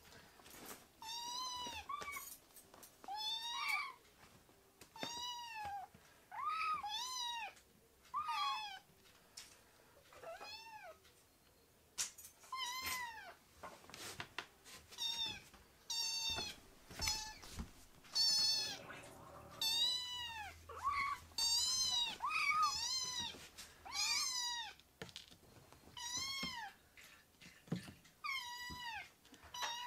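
Very young kittens meowing over and over, high thin cries that rise and fall in pitch, about one a second, crying up insistently at a person. A few soft knocks come in the middle.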